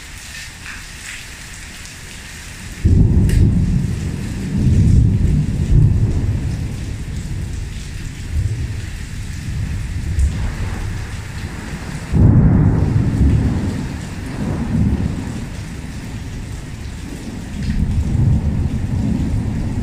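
Heavy rain falling steadily on a tiled patio and pool, with thunder. A sudden loud peal about three seconds in rumbles on in waves, and a second peal comes about twelve seconds in.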